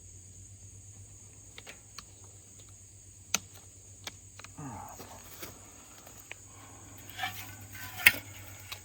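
Scattered sharp clicks and handling noise from working electric-fence wire and fittings by hand, the loudest snap near the end. Under them runs a steady high insect chirring.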